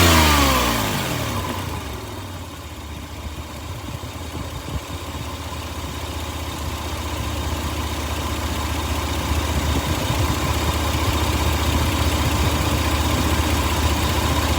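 Toyota engine dropping back from a rev in the first second or so and settling into a steady idle, with the rattle that the owner takes for rod knock.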